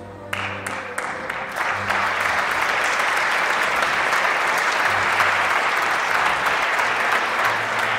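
Audience applauding in a theatre hall. The clapping breaks out suddenly within the first half second and builds to a steady, sustained round.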